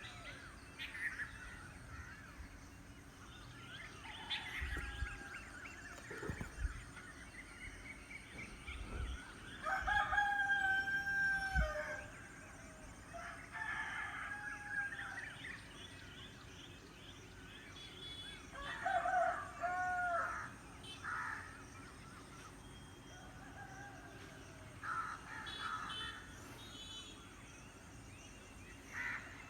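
Roosters crowing several times. The loudest crow comes about ten seconds in and another near twenty seconds, with shorter calls between.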